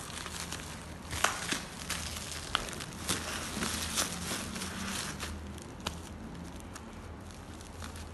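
Black plastic parcel wrapping crinkling and crackling as hands press and rub over it, with scattered sharp crackles, the loudest about a second in.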